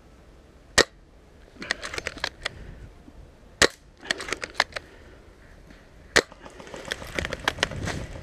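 Bolt-action airsoft sniper rifle firing three single shots a few seconds apart, with quick bursts of metallic clicks between the shots as the bolt is cycled. Near the end there is a crackle of dry leaves and brush underfoot.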